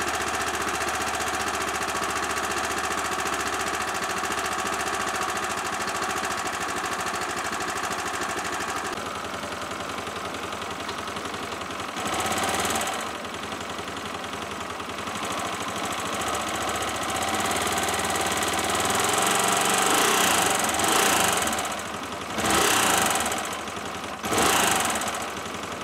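Yamaha YBR 125 single-cylinder four-stroke engine, fitted with a 150 cc kit, running at idle and revved briefly several times in the second half. It knocks at idle, somewhat less now that it is hot, which the owner thinks may be normal given the kit's higher compression.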